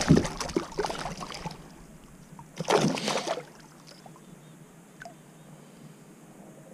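Water splashing and sloshing against a kayak as a hooked bass is lifted out of the water, with a second short burst of splashing about two and a half seconds in. Faint lapping follows.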